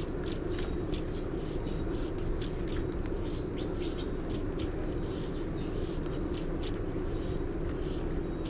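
Steady outdoor background rumble with many short, high bird chirps scattered over it.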